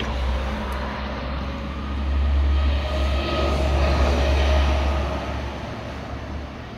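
Low rumble of a passing motor vehicle, swelling for a few seconds and then fading, with a faint engine hum in it.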